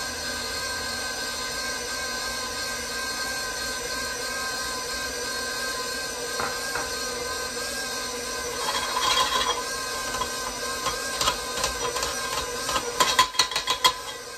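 KitchenAid Professional 5 Plus stand mixer running steadily with its dough hook turning through a stiff rye dough, a constant motor-and-gear whine. From about two-thirds of the way in, a run of sharp clicks and taps as a hand knocks and rubs flour off the plastic pouring shield on the bowl.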